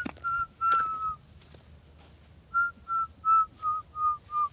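A person whistling short, clear notes to call dogs, each note a little lower than the last. There are three notes in the first second, the last one drawn out, then after a pause a quick run of about six notes, roughly three a second.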